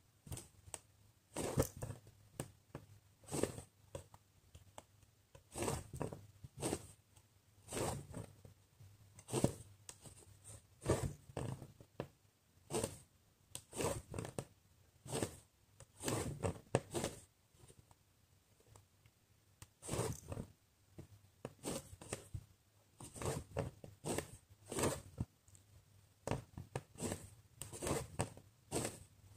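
Needle and embroidery floss being drawn through cross-stitch fabric, a short rasp with each pull, about once a second, with a pause of a couple of seconds a little past the middle.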